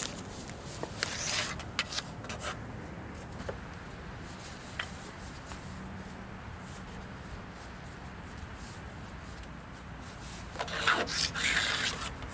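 Sawdust and wood chips being scraped and brushed off a sawmill track. A few short scrapes come near the start, then a longer, louder scrape near the end.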